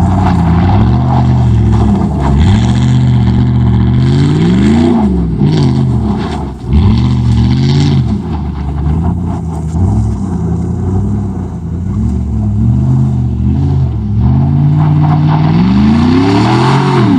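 Loud 2005 Chevrolet Silverado 5.3-liter V8 with a 3-inch straight-pipe exhaust, revving up and falling back over and over as the truck drifts in snow. The sharpest climbs in pitch come about a third of the way in and again right at the end.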